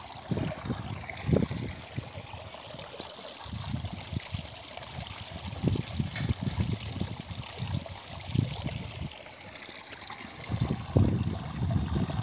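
Water from a mountain spring running and trickling as a steady hiss, broken by irregular low rumbling thumps.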